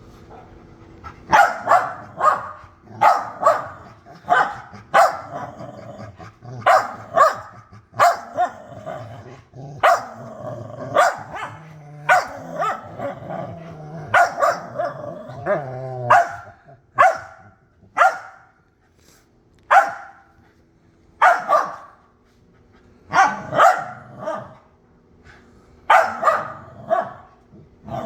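Small dog barking over and over in sharp single barks, roughly one a second, with a low growl between barks through the middle stretch. The barking is that of a little dog worked up at a bigger dog keeping a bone from it.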